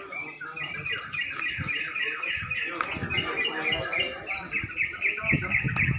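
Several caged crucukan songbirds singing at once: quick runs of repeated, chirping notes overlapping one another.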